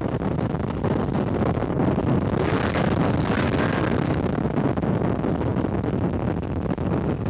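Ski boat under way at speed: a steady rush of engine and water, with wind buffeting the microphone and briefly swelling louder about two and a half seconds in.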